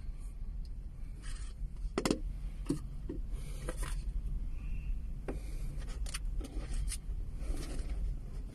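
Steady low rumble inside a car's cabin. Over it come scattered light knocks and scrapes as paper cups are lifted out of and pressed into a plastic 3D-printed cup holder.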